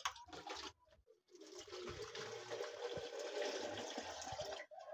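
Water poured from a cup into a plastic jug, a steady splashing stream lasting about three seconds. A few light knocks come first, as the cup is dipped into the bucket.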